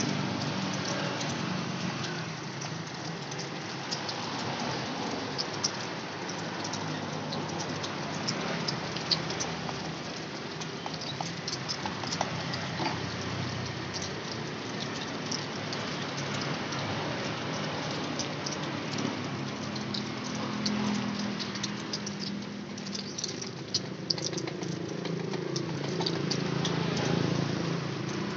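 Fried snack pieces rattling and clicking in a plastic cup as they are stirred and tossed by hand, many small quick clicks over a steady background hiss.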